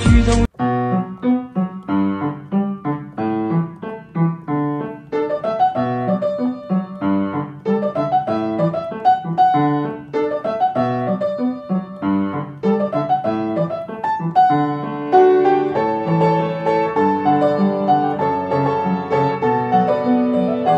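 Solo piano music: a melody of single struck notes over low chords. It starts about half a second in, right after a louder, different sound cuts off.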